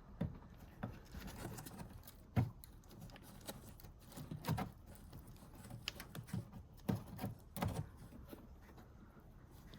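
Faint, scattered clicks and knocks of plastic parts being handled as the cabin pollen filter housing and its retainers are closed up.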